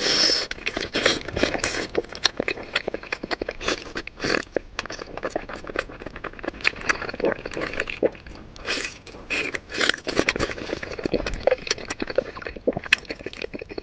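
Close-miked eating: biting and chewing grilled meat, a dense run of short wet crunching and smacking sounds.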